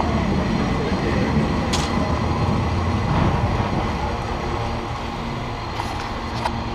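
San Francisco cable car rolling along its street track: a steady low rumble from the wheels on the rails and the cable running under the street. A sharp click comes about two seconds in, and a couple more near the end.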